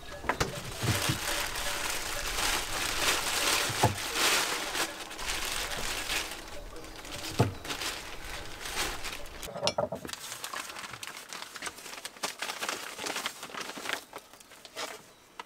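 Paper wrapping crinkling and rustling as blocks of cheese are unwrapped by hand, with a few soft knocks. It thins out to sparser rustles after about nine seconds.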